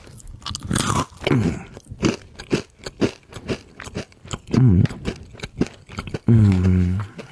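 Close-miked chewing of Calbee fried chestnut pieces: a quick run of crunches. Short hummed "mm" sounds come a little over a second in and again past the middle, and a longer hum comes near the end.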